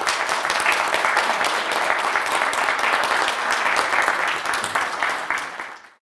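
Audience applauding, a dense steady clapping that stops abruptly near the end.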